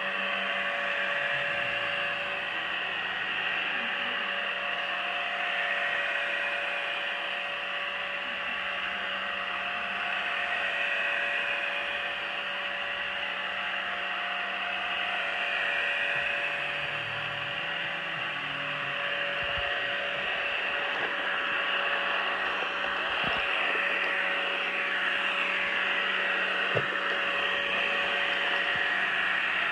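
Pure Clean robot vacuum running over carpet: a steady whir of its motor with a constant hum tone.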